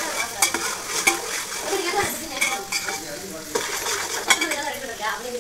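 Onions frying with a steady sizzle in a large metal pot while a long spatula stirs them, scraping and knocking against the pot several times.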